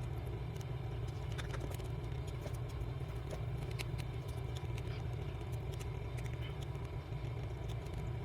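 Small precision screwdriver and tweezers working out the tiny screws of a smartphone's inner cover: faint, irregular light clicks and ticks over a steady low background hum.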